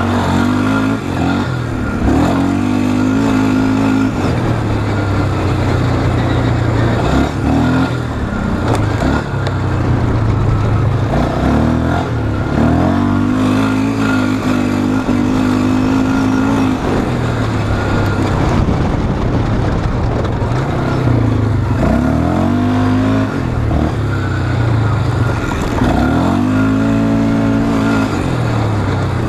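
Polaris Scrambler 500 ATV's single-cylinder four-stroke engine under hard riding, revving up and backing off again and again as the throttle is opened and closed around the track.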